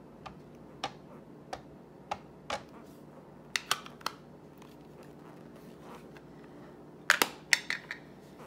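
Plastic ink pad dabbed against clear rubber-free stamps: a run of light clicks spaced roughly half a second to a second apart, then a quick cluster of louder clicks and knocks a little after seven seconds.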